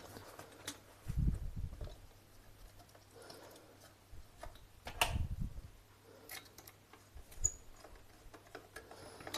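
Scattered light clicks and taps of a screwdriver and wire being worked into a terminal of a plastic power-plug socket, with a couple of louder knocks about a second in and around five seconds in.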